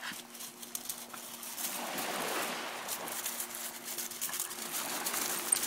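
Pebbles crunching and clicking underfoot as a small dog and a person walk over a shingle beach, many short crackles in quick succession, with a faint steady low hum underneath.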